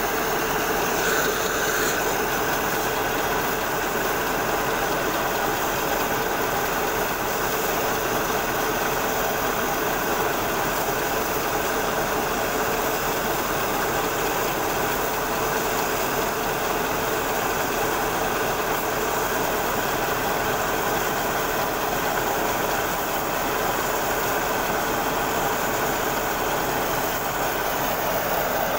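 Tractor-driven paddy threshing machine running steadily at full speed, its drum threshing bundles of rice stalks as they are fed in: a constant loud mechanical whir with a steady hum.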